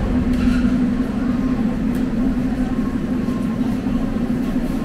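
Steady low hum of a metro train standing at the platform, with passengers' voices murmuring in the background.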